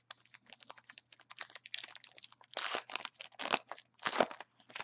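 A 2014 Topps Allen & Ginter baseball card pack being handled and torn open: its crimped paper wrapper crinkles and tears. The sound is loudest in three stretches in the second half.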